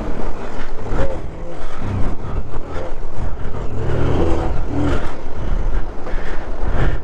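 Motorcycle engine running and revving up and down unevenly as the bike is ridden slowly across a shallow, rocky stream bed, with water splashing under the wheels.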